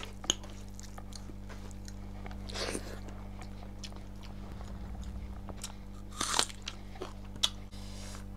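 Close-miked eating sounds: a person chewing a mouthful of rice and pork curry, with wet mouth clicks and smacks, and two longer crunchy smacks about two and a half and six seconds in. A steady low hum runs underneath.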